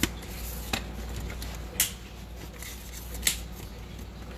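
Hand trigger spray bottle giving four short spritzes, about a second apart, over a low steady hum.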